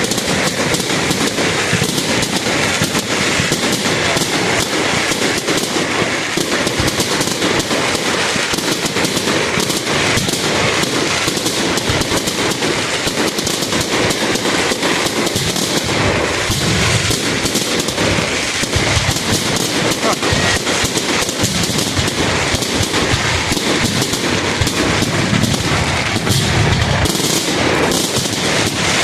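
Fireworks going off in a dense, continuous run of rapid bangs and crackling, many per second.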